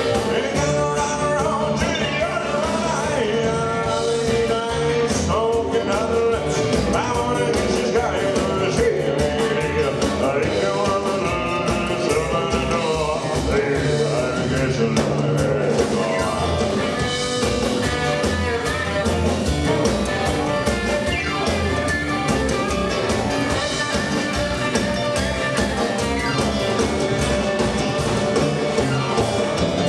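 Live rock and roll band playing a song at a steady beat, with electric guitar, upright double bass, keyboard and drums, and singing.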